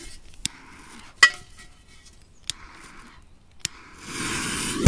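A lighter being clicked to light a firecracker's fuse: four sharp clicks about a second apart, the second the loudest, with a short hiss after three of them, and a louder hiss lasting about a second near the end.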